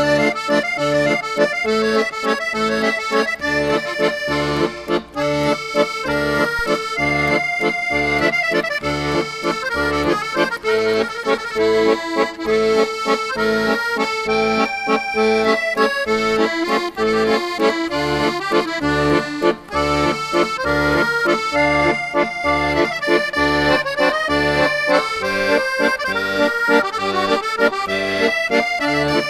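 Background music with a steady beat, sustained melody notes over a pulsing bass line.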